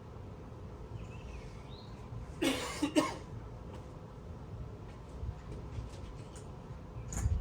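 A person coughs twice in quick succession, with faint bird chirps and a steady low hum in the background.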